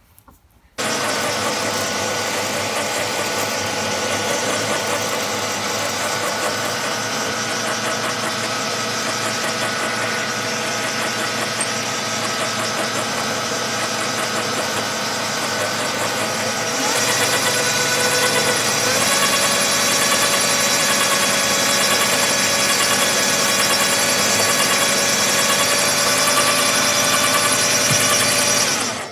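Small benchtop metal lathe switched on and running, its motor and drive giving a steady whine as the chuck spins. About two-thirds of the way through the sound grows louder and brighter, and it cuts off sharply at the end.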